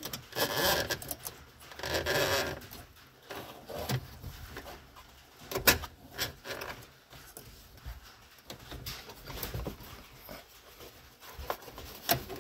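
Rustling and scraping of hands pulling a choke cable through the wiring under a dashboard, with irregular handling noises and a sharp click about five and a half seconds in.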